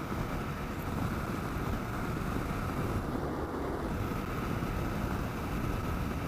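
Steady rush of wind on a helmet microphone with a 2009 Kawasaki KLR 650's single-cylinder engine running underneath at road speed, riding in heavy rain.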